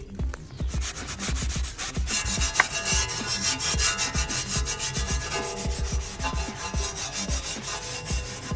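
Scotch-Brite abrasive pad scrubbed back and forth in rapid strokes, scuffing the surface so the primer has something to bond to.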